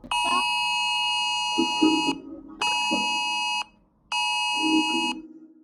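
Emergency alert alarm tone: a steady electronic two-tone beep switching on and off, one beep of about two seconds and then two shorter one-second beeps with brief gaps.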